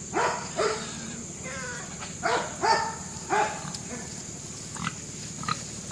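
Dog barking in short, falling barks: two together, then three more about two seconds later.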